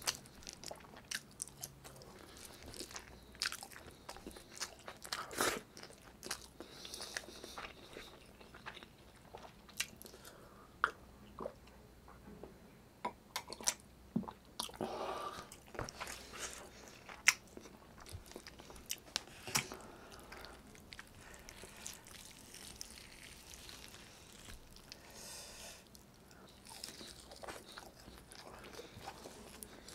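Close-miked eating: chewing and lip-smacking of braised chicken adobo and rice eaten by hand, with irregular wet clicks and smacks. About halfway through comes a short stretch of swallowing as he drinks water.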